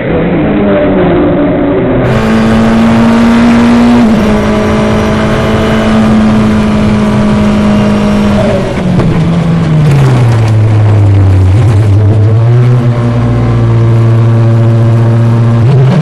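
Onboard sound of an open-wheel racing car's engine on a wet track, holding a steady high note for several seconds, then dropping sharply in pitch about halfway through as the car slows, before running on at a lower, steady note.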